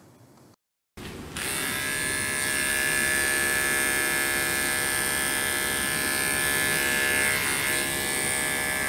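Electric dog grooming clippers running with a steady buzz, starting abruptly about a second in.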